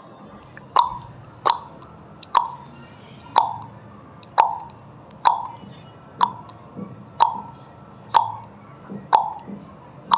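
Countdown timer sound effect: a sharp tick with a short ringing tone about once a second, eleven ticks in all, over a faint steady background hiss.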